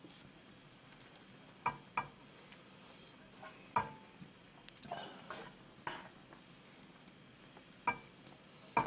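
Chopsticks tapping and clicking against a pan and bowl as instant ramen noodles are lifted out and eaten: a scattering of short, separate taps.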